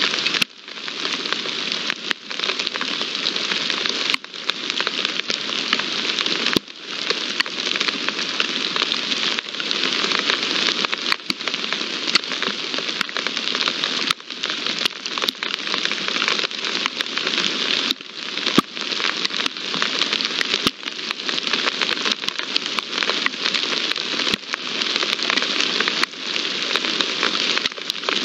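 Steady rain falling, a dense hiss of drops with scattered sharper drop ticks, cut by brief gaps every two to three seconds.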